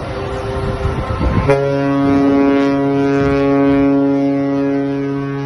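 Rush of wind and sea, then about one and a half seconds in a ship's horn sounds one long, steady, unwavering blast that carries on to the end.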